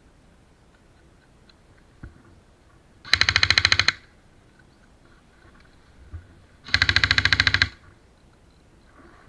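Airsoft gun firing two short full-auto bursts, each about a second of rapid, evenly spaced shots, with a faint single knock shortly before each burst.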